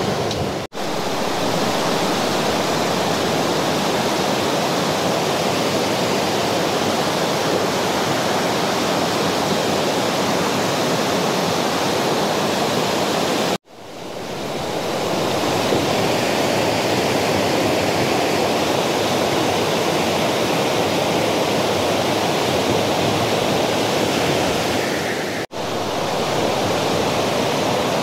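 Fast-flowing river water rushing steadily. The sound cuts out briefly three times, near the start, about halfway and near the end, and comes straight back each time.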